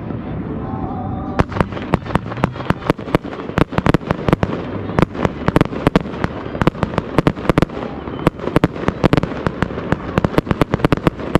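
Aerial fireworks display: a low rumble of bursts, then from about a second and a half in a rapid, irregular string of sharp cracks and bangs, several a second.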